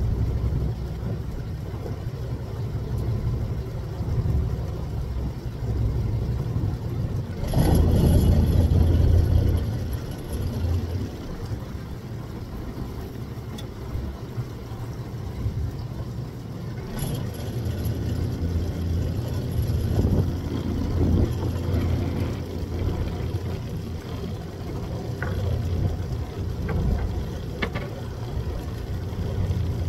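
Fishing boat's engine idling with a steady low rumble, swelling louder for a couple of seconds about a quarter of the way in, with a few faint clicks later.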